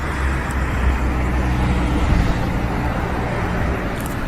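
Car being driven at steady speed: a steady low engine drone with tyre and road noise.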